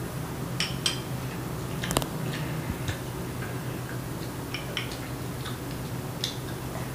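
Metal spoon clicking against a bowl of cereal and milk as it is dipped and stirred: a string of light, irregular clicks over a low steady hum.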